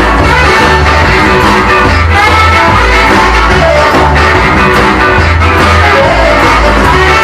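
Rock and roll record playing, with guitar and a steady, even bass beat.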